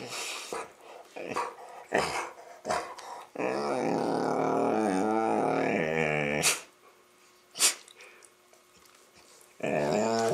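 Labradors play-growling and barking. There are a few short yips and barks, then a long wavering growl of about three seconds, two sharp barks, and another growl starting near the end.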